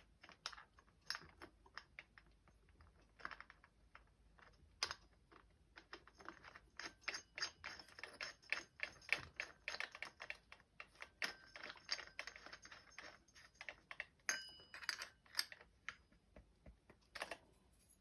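Faint, irregular small clicks and taps of metal parts being handled as a disc is fitted onto an angle grinder spindle and the flange nut is worked with a pin spanner wrench, with one short metallic ring a little past three-quarters of the way through.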